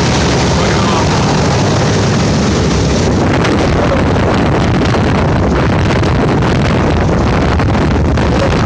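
The four Wright R-1820 Cyclone radial engines of a B-17 Flying Fortress running as it taxis past. From about three seconds in, gusts of propeller wash buffet the microphone.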